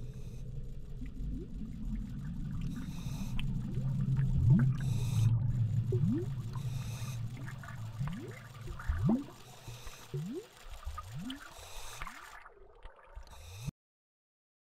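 Underwater sound effects: a low rumble with a string of bubbles rising in short upward-gliding bloops, which thin out toward the end. The sound cuts off suddenly a second before the end.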